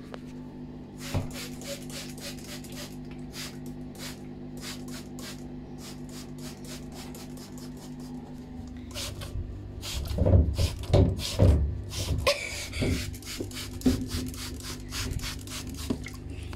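Phone handling noise: the phone rubs and bumps against hands and fur, loudest from about nine to twelve seconds in. It sits over a steady low hum, with scattered short clicks.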